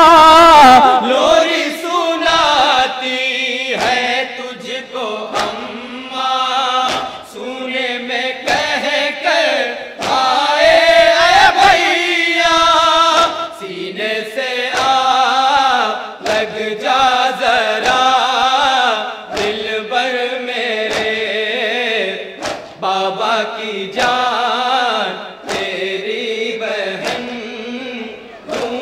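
A group of men chanting an Urdu noha (lament) in unison through a microphone and PA, with long, wavering held notes in a slow line-by-line refrain. Sharp slaps of chest-beating (matam) keep time between the sung phrases.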